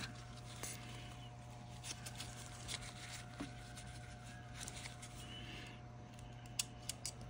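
Faint handling noises: small clicks and light scrapes of tweezers and plastic as a thin flex cable is tucked into a dashcam's back mount, with a few sharper clicks near the end. A steady low electrical hum lies underneath.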